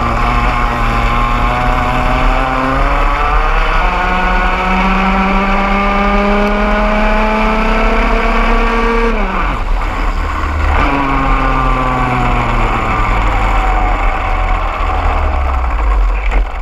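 Onboard sound of a KA3 Senior racing kart's two-stroke engine at race speed: its pitch climbs steadily along the straight, drops sharply about nine seconds in as the driver lifts for a corner, then climbs again. The engines of the karts running close by are mixed in.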